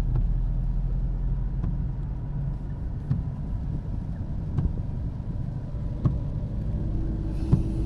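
Car driving on the road, heard from inside the cabin: a steady low rumble of engine and tyres, with a faint click about every second and a half. A steady tone comes in near the end.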